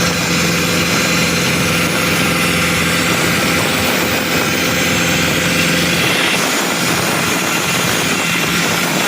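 Compressor-driven rock drilling rig running loudly, a dense mechanical din with a steady drone and rapid low hammering. About six seconds in, the low hammering drops out, leaving a steady hiss and engine noise.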